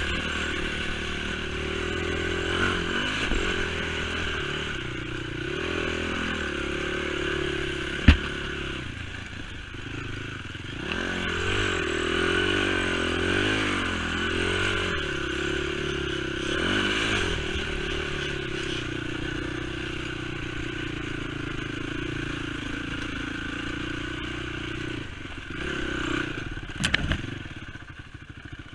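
ATV engine running on a rough trail, its pitch rising and falling with the throttle, with the machine clattering and scraping over bumps. A sharp knock about eight seconds in, and a few more hits near the end.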